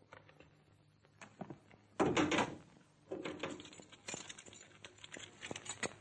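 A glass-paned door is bumped and rattled hard about two seconds in, followed by lighter knocks and rattles as it is handled.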